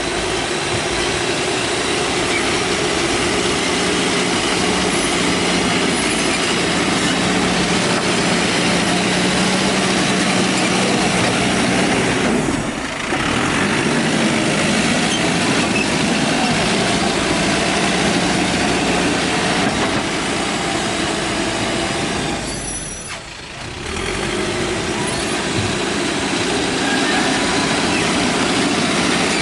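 Diesel engine of a Mahindra SX90 backhoe loader running steadily under working load, with two brief dips in level, about 13 and 23 seconds in.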